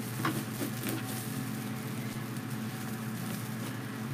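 Foil deco mesh rustling and crinkling softly as hands twist and work it into a wire wreath frame, over a steady low hum.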